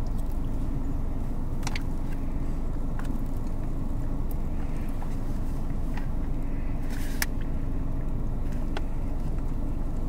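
A car engine idles with a steady low drone, heard from inside the cabin. A few light clicks and rustles from a spoon and a foil meal pouch sit over it, most around 7 seconds in.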